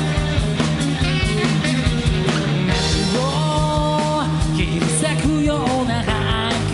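Rock band playing live: drums and bass under a held melody line that slides between notes around the middle, at a steady loud level.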